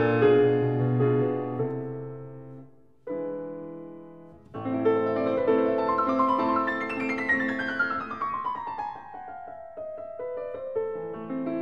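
Background piano music: gentle chords with a fast falling run of notes in the middle.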